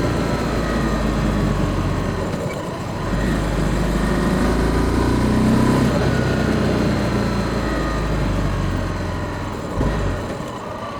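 Honda CB300F Twister's single-cylinder engine running while the motorcycle is ridden, heard from a microphone under the seat. The engine eases off about two seconds in, picks up again, and eases off once more near the end.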